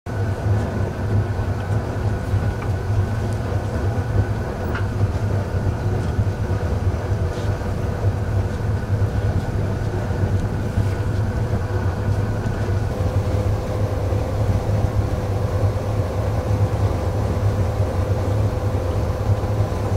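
Solar-powered boat under way: a steady low rumble with hiss, and a faint thin whine that drops to a lower pitch about two-thirds of the way through.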